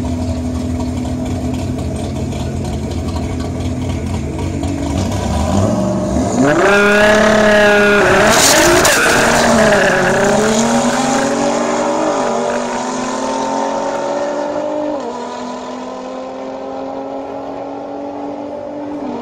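A drag-racing car launching down the strip and accelerating hard, its engine pitch climbing, dropping at each gear shift and climbing again. It is loudest a few seconds after the launch, then fades as the car pulls away. An engine idles steadily before the launch and after it fades.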